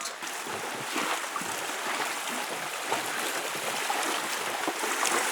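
Steady rush of flowing water, with scattered soft knocks.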